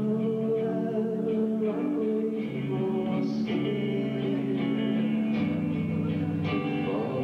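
Live alternative rock band playing an instrumental passage, with sustained electric guitar chords over bass and drums, heard through an old VHS recording.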